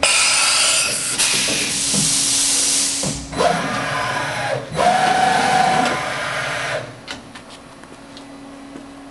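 1991 Bridgeport Interact 412X CNC machining center working through a tool change and cycle: a loud air hiss for about three seconds, then the machine's motors whine, rising in pitch twice and holding steady before dropping away about seven seconds in, leaving a steady low hum.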